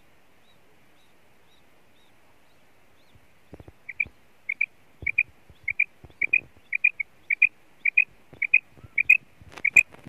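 Female common quail calling: a quick pair of short notes, repeated about twice a second, starting about four seconds in. A few knocks fall among the calls, the loudest near the end.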